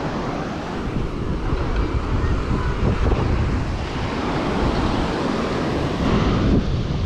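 Surf breaking on the beach, with wind buffeting the GoPro's microphone in a steady, fluttering low rumble.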